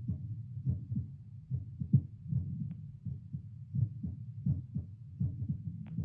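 A resting human heartbeat picked up by a Littmann CORE digital stethoscope on the chest and played out through its speaker: steady paired lub-dub thumps at about 78 beats a minute.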